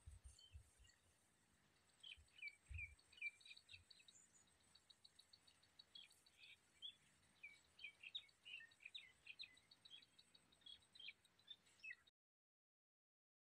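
Faint outdoor birdsong: many short chirps from small birds with a fast repeated ticking call among them, and a few low thumps in the first three seconds. The sound cuts to dead silence about a second before the end.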